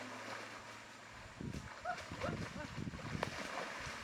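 A few short chirps from small birds, with rustling and handling noise from about a second and a half in until near the end.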